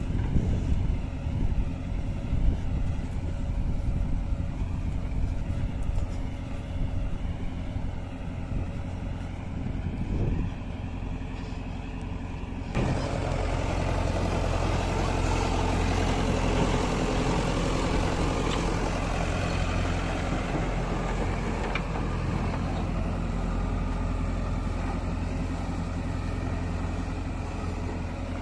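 Diesel engine of a JCB 3DX backhoe loader running steadily as the machine drives and works. About halfway through the sound changes abruptly to a louder, noisier engine sound.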